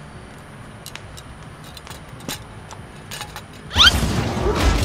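A few faint clicks as a small camping gas stove is handled, then about four seconds in a sudden loud burst of action-film sound effects: rising whooshes and a deep rumbling blast.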